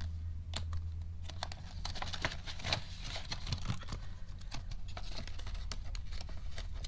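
Clear plastic binder pockets and paper banknotes rustling and crinkling as the pages of a cash binder are turned and handled, in a string of small irregular clicks and crinkles over a low steady hum.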